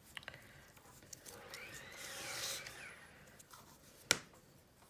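Faint hand-handling of a tie being pulled and knotted: soft rubbing that swells around two seconds in, a few light clicks, and a sharper tap about four seconds in.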